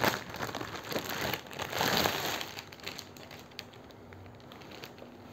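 Clear plastic packaging crinkling as it is handled and pulled open. The crinkling is busy for the first two and a half seconds, then dies down to a few faint rustles.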